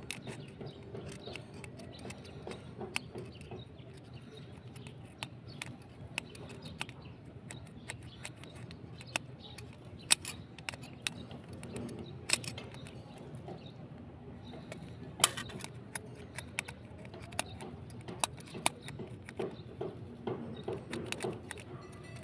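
Small irregular clicks and taps of a doorbell push-button switch being opened and handled while it is cleaned of the ants that stopped it from working, with a few louder clicks about 10, 12 and 15 seconds in.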